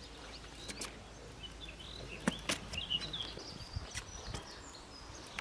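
Open-air field ambience: faint birds chirping over a low steady rumble, with a few scattered sharp clicks and knocks.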